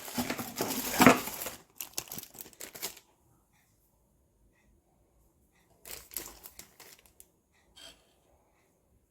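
Crinkling and rustling of something being handled. It is dense for the first second and a half, comes in short bursts until about three seconds in and then stops, and returns briefly around six seconds.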